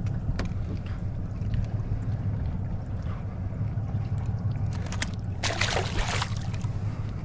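A small tripletail released over the side of a boat splashes into the water about five and a half seconds in, over a steady low rumble.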